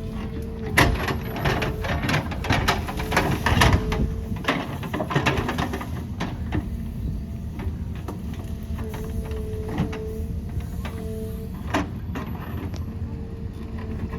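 Backhoe loader's diesel engine running steadily while the digging arm and bucket clank and knock, with a quick run of sharp knocks in the first few seconds and scattered ones later.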